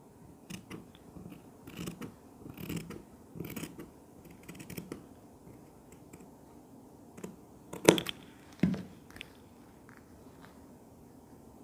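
Scissors snipping through thin cotton fabric, a series of short, quick cuts. A little later come two sharper, louder clacks, the first the loudest sound of all.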